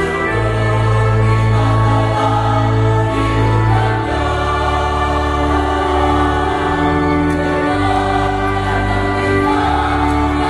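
Church choir of women and men singing a hymn in held chords, accompanied by a two-manual electronic organ with sustained bass notes that change every second or two.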